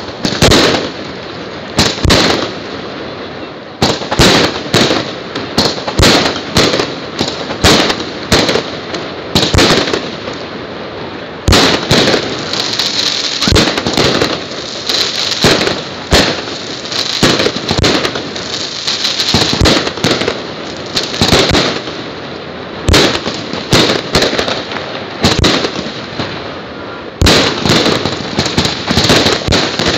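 Aerial firework shells bursting in an irregular barrage of sharp bangs, dozens of them, some in quick succession. A steady hiss fills the gaps between bangs through the middle and again near the end.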